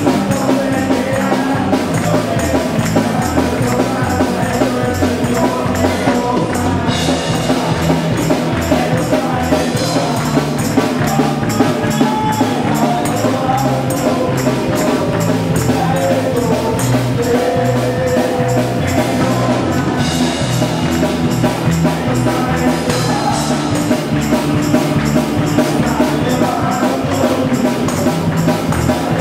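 Live worship music: a band with electric bass and a steady percussion beat, with people singing along.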